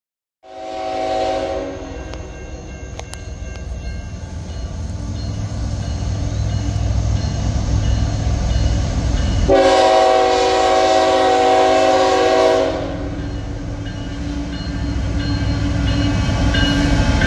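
Norfolk Southern diesel freight locomotive's air horn sounding a short blast, then a longer blast of about three seconds near the middle, over the rising rumble of the approaching locomotive. The horn is sounded at a whistle post for a road crossing.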